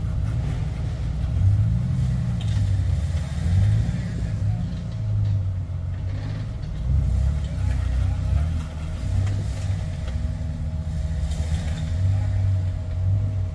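Lifted Jeep Wrangler's engine revving up and easing off again and again as it crawls over rock ledges; the engine note rises and falls several times.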